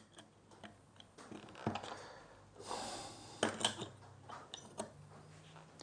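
A few light metal clicks and knocks as the blade and cap iron are set into a Stanley No. 4 hand plane, with soft handling noise between them.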